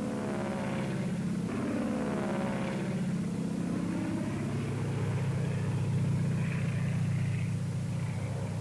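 Engines of a P-38 Lightning fighter droning in flight, their pitch sweeping up and down over the first few seconds as the plane manoeuvres, then settling into a steadier drone.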